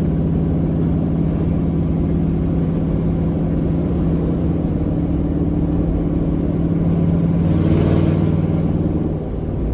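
Pickup truck engine droning steadily while driving, heard from inside the cab, with a slight swell in level about eight seconds in.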